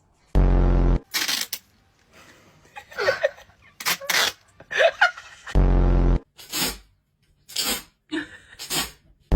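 A string of short, separate sound effects: three loud buzzy half-second blasts (just after the start, about six seconds in, and at the very end), with short sharp hissy bursts and a few squeaky gliding sounds between them.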